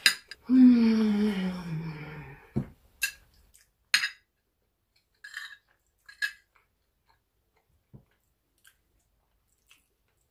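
A metal spoon clicking against a plate a few times while a meal of rice and stew is eaten. Near the start a drawn-out voice-like sound slides down in pitch for about two seconds, louder than the clicks.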